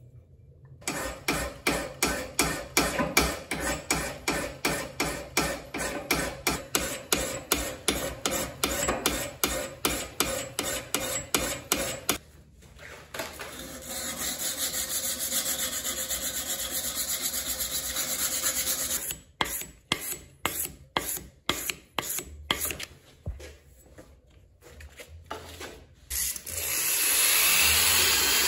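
Abrasive paper rubbed by hand over a steel hatchet head held in a vise: quick back-and-forth strokes at about three a second, then a stretch of steady rubbing, then slower strokes. Near the end an electric drill with an abrasive wheel spins up and runs steadily against the head.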